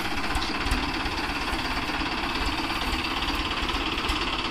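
Mahindra diesel tractor engine idling with a steady, even beat.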